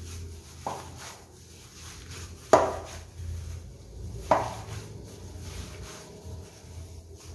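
A hand in a plastic glove mixing mashed potato and chopped vegetables in a glass bowl, with three sharp knocks against the glass: a light one near the start, then two louder ones about two seconds apart.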